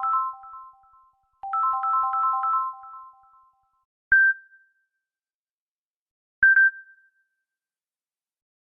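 Samsung Galaxy phone tones playing: a short, bright three-note electronic chime phrase repeated twice, then two single high ding notes a little over two seconds apart.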